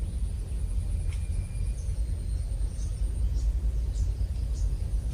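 A steady low rumble, with a few faint, short bird chirps above it.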